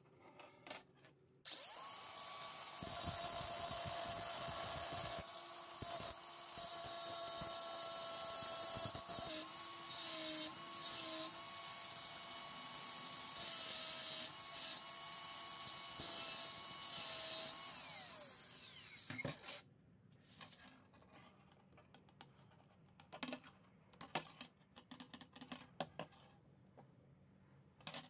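Cordless angle grinder spinning up and cutting through a thin steel rod with its cutoff disc. Its steady whine dips briefly in pitch a few times, then winds down and stops about two-thirds of the way in. Light clicks and taps of the metal being handled follow.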